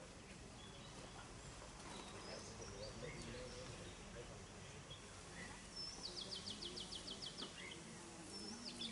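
Faint outdoor ambience with scattered bird chirps. Past the middle comes a quick run of about ten short high notes, dropping slightly in pitch.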